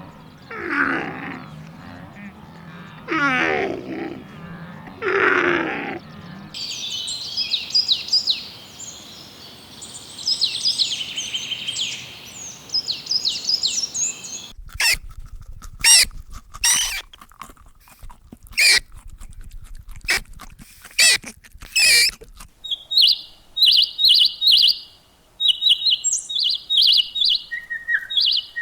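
A run of farm animal and bird calls. First come three long wavering calls. Then comes a stretch of high bird chirping and tweeting, then a series of sharp short calls, and near the end a rapid run of high peeping.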